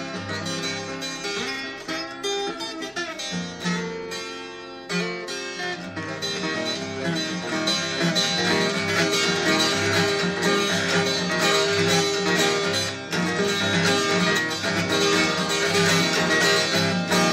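Steel-string acoustic guitar fingerpicked, a quick melody over steady, evenly spaced bass notes; the playing grows fuller and louder about six seconds in.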